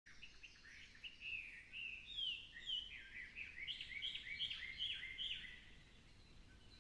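Birds chirping in quick series of short, slurred notes, several overlapping, with the chirping dying away about five and a half seconds in.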